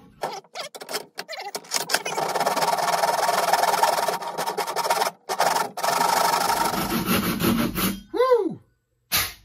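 Hand saw cutting into the top of a wooden axe handle to widen the kerf for the wedge: a few short strokes, then quick steady back-and-forth sawing for several seconds, broken by a brief pause about five seconds in. Near the end comes a short ringing tone that rises and falls in pitch, then a single knock.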